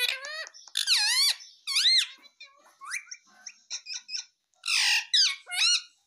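Indian ringneck parakeet calling: a run of high squeaky chirps and arching whistled notes, with one harsher screech just before the last few chirps.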